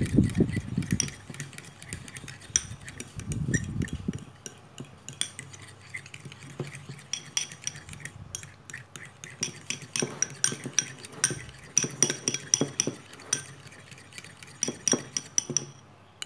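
A metal fork whipping dalgona coffee mixture by hand in a ceramic bowl: rapid, repeated clinks of the fork against the bowl over a wet stirring sound.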